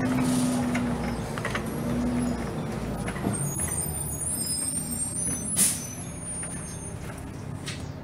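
Inside a 2006 Blue Bird Xcel 102 CNG transit bus: its John Deere 6081H engine droning, then easing off as the bus slows, the sound fading. A faint high brake squeal follows, and about five and a half seconds in comes a short, sharp air-brake hiss.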